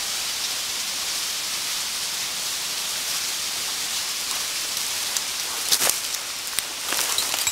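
Steady, even rushing hiss of a waterfall, with a few brief clicks about six to seven seconds in.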